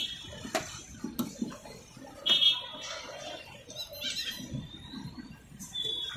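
A butcher's knife working at a slaughtered chicken on a metal-topped table: a few light knocks and some scraping, with short high squeaks at the start, about two and a half seconds in and near the end.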